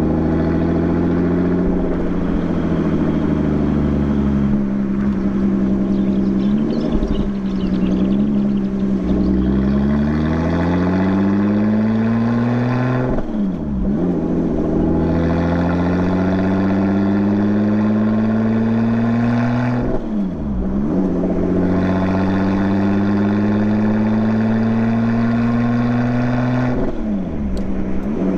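Lotus Exige 430 Cup's supercharged V6 engine and exhaust pulling under acceleration, the engine note climbing steadily for several seconds at a time. The pitch drops sharply three times, at upshifts, before climbing again.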